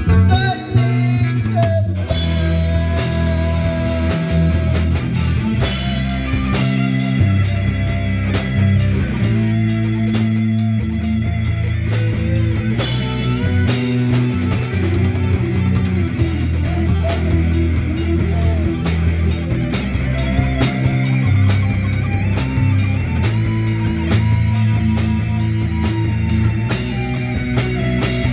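Live amplified rock band playing: electric guitars through amplifiers, bass guitar, and a drum kit keeping a steady beat.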